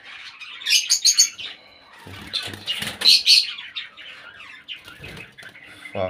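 Aviary birds chirping and squawking: shrill, high calls come in two loud clusters, about a second in and about three seconds in, with softer chatter between.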